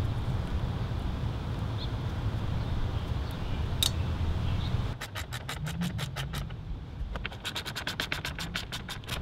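Hand ratchet wrench clicking rapidly as it turns the mounting bolts of a BMW E39 auxiliary electric fan. The clicking starts about halfway through, stops briefly, then runs on slightly faster. Before that there is only a low steady rumble.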